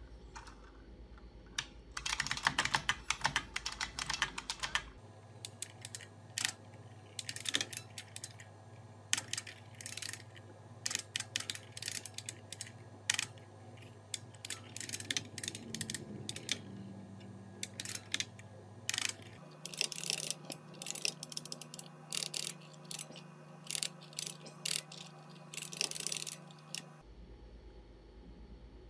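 Keys clattering on an IBM Model F buckling-spring keyboard as a sentence is typed, sped up, in irregular runs of sharp clicks over a low steady hum.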